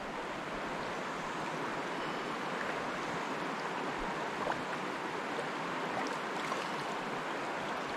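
Steady rush of a flowing trout stream, with a few faint splashes as a hooked brook trout thrashes at the surface.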